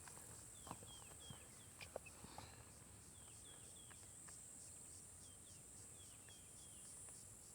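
Faint outdoor ambience: a steady high-pitched insect drone with faint short descending chirps repeating every half-second or so, and a few soft clicks.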